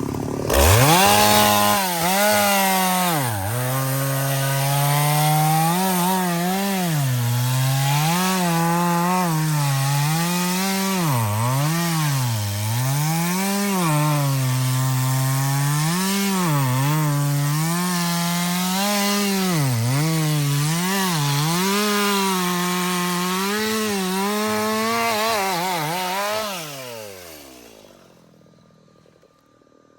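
Two-stroke chainsaw cutting through wood, its engine pitch dipping under load and climbing again repeatedly as the bar bites and frees. Near the end the engine winds down with a falling pitch and stops.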